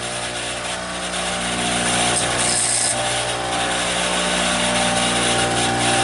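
Bench grinder motor running with a steady hum while a broken screwdriver tip is ground square against the stone. The high grinding hiss comes and goes in short touches, strongest about two seconds in.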